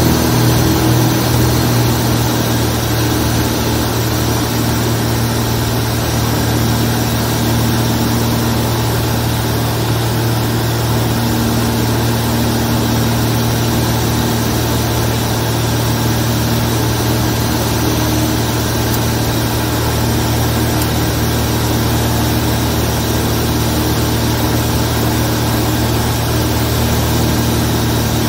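Zlín 42 light aircraft's piston engine and propeller running at a steady, even pitch.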